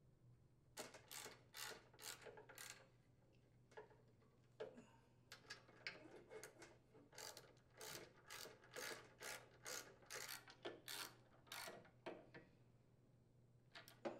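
Socket ratchet wrench clicking in short, uneven runs as bolts are driven back into a snowblower's chute gearbox support bracket.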